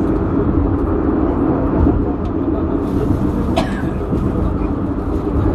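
Penang Hill funicular car running uphill on its rails: a steady rumble of the wheels and carriage.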